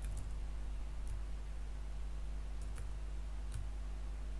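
Computer keyboard keystrokes: a handful of separate clicks, spaced unevenly, over a steady low electrical hum.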